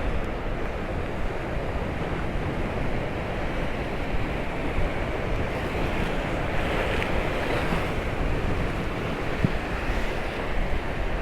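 Sea waves washing against the seafront, a steady surf noise, with wind buffeting the microphone.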